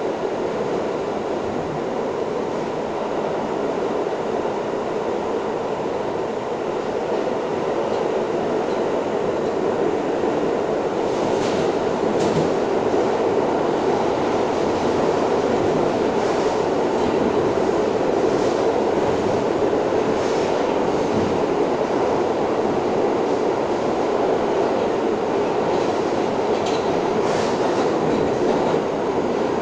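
R62 subway train running through a tunnel, heard from inside the car: a steady rumble of wheels on rail that grows a little louder about a third of the way in, with a few brief clacks from the track.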